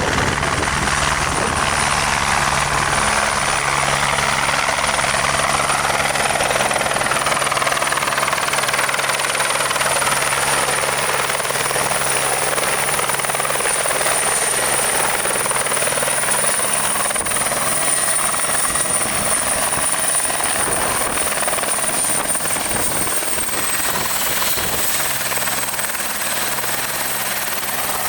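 Twin-engine Airbus AS355N helicopter running loud and steady, its turbine whine high and constant, dropping slightly in pitch about 24 seconds in.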